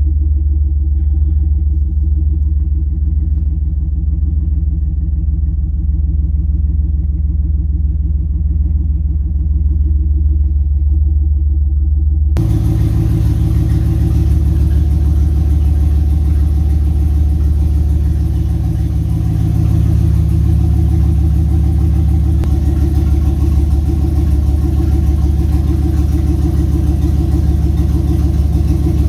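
Turbocharged Cadillac Escalade V8 idling steadily while warming up from a cold start. It sounds muffled from inside the cab at first. About twelve seconds in it suddenly turns fuller and brighter, heard from the open engine bay.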